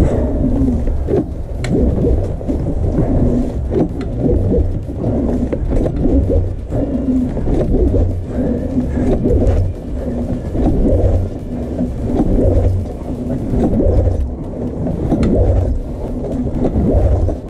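Snowmobile engine being pull-started over and over in extreme cold: a low rumbling surge with each pull of the recoil starter, about one a second or so, while the engine does not catch and run.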